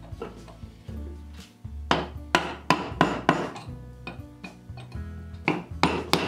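Wooden mallet striking a punch held against a metal lathe chuck: a quick run of about five sharp taps, a pause, then another run near the end. Background music with a steady low bass runs underneath.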